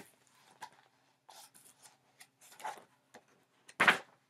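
Paper rustling and soft clicks as picture-book pages are handled and turned, a string of short faint rustles with a louder flip about four seconds in.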